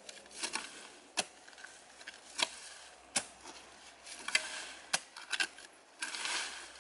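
Metal spade chopping into damp clay soil, a sharp knock with each stroke, irregularly about once a second, with a longer scrape of earth about six seconds in.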